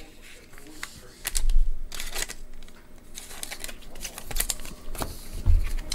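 Hands handling and sorting baseball trading cards: scattered light clicks, slides and rustles of card stock, with a couple of dull bumps on the table.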